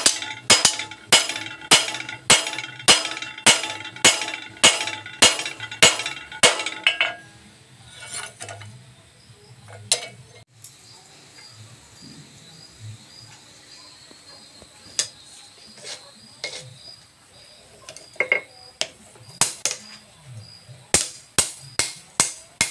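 Hand hammer striking a red-hot leaf-spring steel spear blade on an anvil, sharp ringing blows at a steady pace of about two a second while the blade is drawn out. The hammering stops for a long stretch partway through, then resumes with quick blows near the end.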